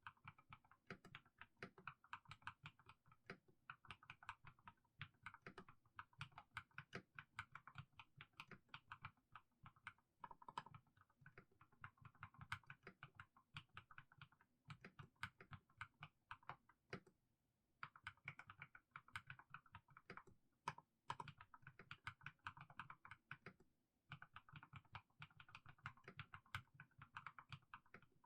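Mechanical keyboard with fully lubed Haimu Sea Salt switches being typed on, the keystrokes coming in runs with brief pauses between them.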